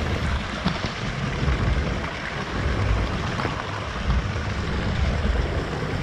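Small waterfall pouring and splashing close to the microphone: a steady rush of water with uneven low rumbling underneath.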